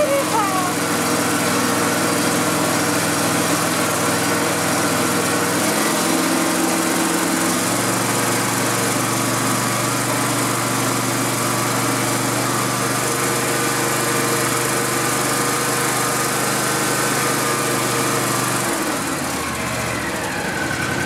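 Riding lawn mower's small engine running steadily. Its note shifts about six seconds in and changes again near the end.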